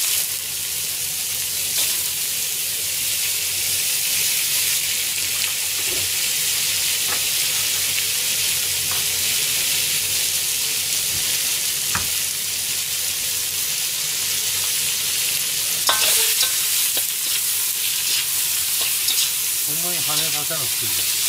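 Eggplant, onion and bean sprouts frying in a very hot wok: a steady, loud sizzling hiss from the water-rich vegetables in the smoking oil, with a few light knocks. Near the end they are stirred with a ladle.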